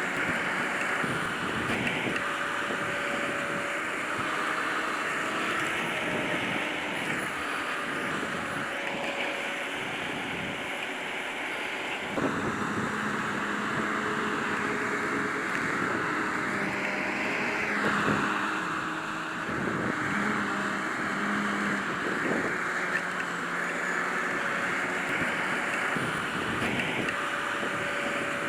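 Grimme Varitron 270 potato harvester running steadily while harvesting. Its engine and machinery make a continuous drone whose pitch shifts slightly now and then.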